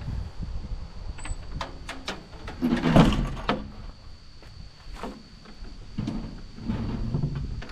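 Irregular knocks, clicks and scraping, loudest about three seconds in, over a faint steady high whine.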